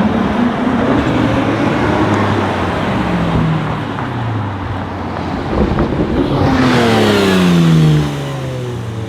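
ABT Audi RSQ8-R's twin-turbo 4.0 L V8 accelerating hard past. It grows to its loudest about seven to eight seconds in, then its pitch falls steeply and the level drops as it goes by.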